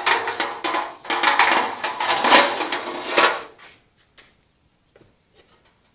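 Sheet-metal furnace blower wheel clattering and scraping against its sheet-metal housing as it is worked back in, with a metallic ring, stopping about three and a half seconds in; a few light clicks follow.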